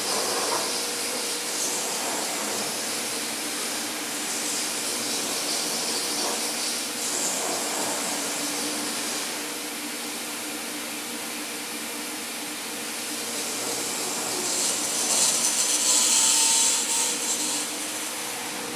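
DMS 5-axis CNC router running: a steady rushing machine noise with a faint hum, swelling into louder hissing several times, loudest about three-quarters of the way through.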